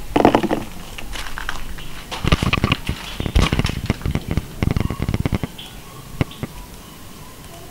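Rustling and crackling of cherry tomato vines and leaves being handled as ripe Sungold tomatoes are picked by hand, for about five seconds. A single sharp click follows about six seconds in.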